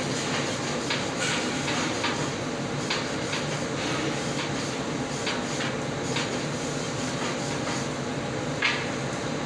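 Shielded metal arc welding with an E6010 stick electrode: a steady crackling hiss from the arc, with irregular sharp pops and a stronger one near the end.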